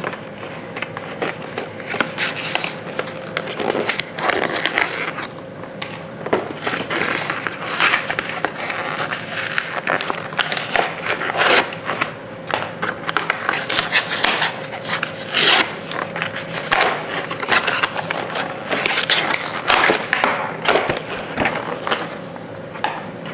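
Cardboard carton being torn open along its perforated strip and its flaps bent back: irregular rips, scrapes and crackles of the paperboard under the hands.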